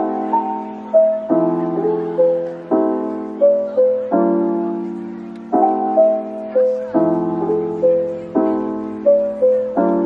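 Soft, slow background piano music: a chord struck about every one and a half seconds and left to fade, with a simple melody of single notes above it.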